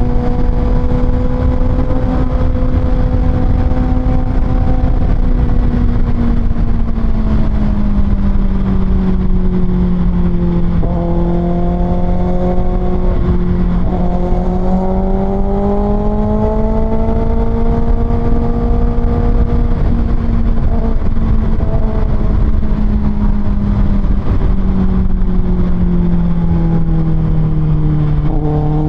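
Kawasaki ZX-6R's 636cc inline-four, fitted with an Austin Racing exhaust, running under way. Its pitch drops over the first several seconds, climbs again in the middle, sinks lower toward the end and starts rising just at the close, over a steady low rush of noise.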